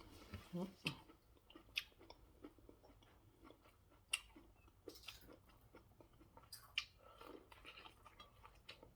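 A person chewing food quietly close to the microphone: soft, scattered mouth smacks and clicks, with a few sharper ticks.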